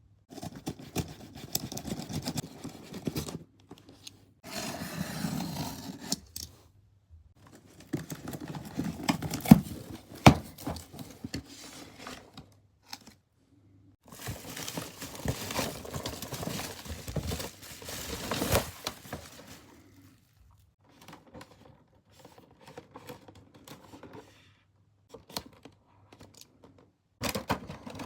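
Action-figure packaging being opened and handled: crinkling and tearing of packaging in irregular bursts with short pauses, sparser and quieter toward the end.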